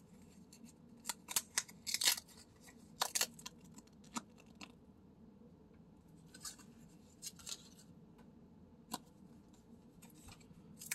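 Paper pull-tab lottery ticket tabs being pulled open by hand: short crisp snaps and crackles of tearing cardboard-like paper, coming in several brief clusters.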